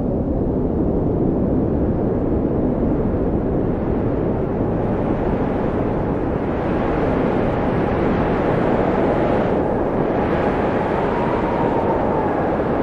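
Wind blowing steadily, a low rushing noise with a faint whistle that slowly rises and falls in pitch. The upper hiss grows stronger about five seconds in.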